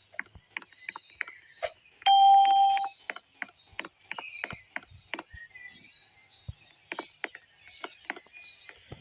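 One electronic beep-like tone, held steady for under a second, about two seconds in, among many scattered short clicks and ticks.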